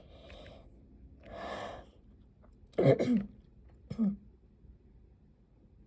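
A person's breathing: two soft audible breaths, then a short loud vocal burst about three seconds in and a brief shorter one about a second later.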